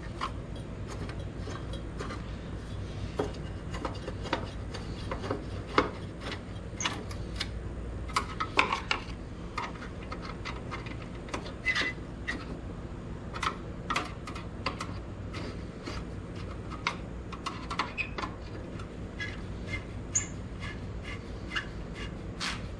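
A screwdriver running small screws into a headlight retaining ring by hand, with irregular light clicks and scraping of metal and plastic parts being handled.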